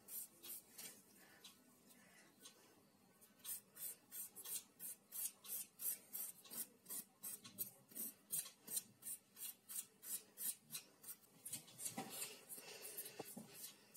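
A nail file rasping over a dog's claws in short, even strokes, sparse at first and then about three a second, with a soft thump near the end.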